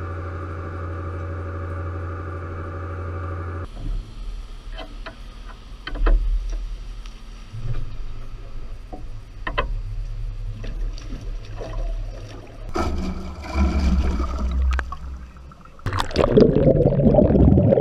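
A steady machine hum for the first few seconds, then scattered clicks and knocks over a low rumble. Near the end comes loud splashing and bubbling of water as the CTD rosette carrying the camera goes under the sea surface.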